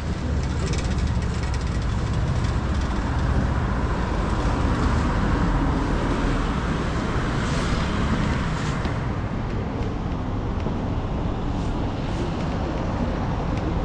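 Steady city street traffic noise, a low rumble with a broader swell in the middle as a vehicle goes by.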